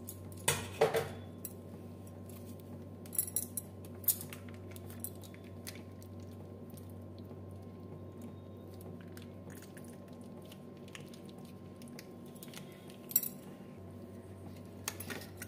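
Scattered short clinks and crinkles, a few seconds apart, as a plastic packet of curd is squeezed out over a steel bowl, over a steady low hum.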